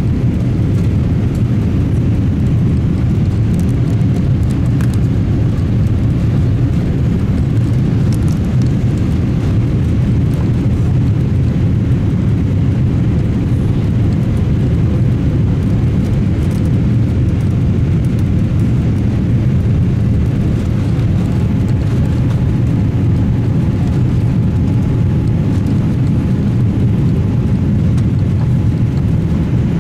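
Steady low rushing noise inside the cabin of a Boeing 787-8 airliner, the mix of jet engine and airflow noise heard from an economy seat, with no change in level or pitch.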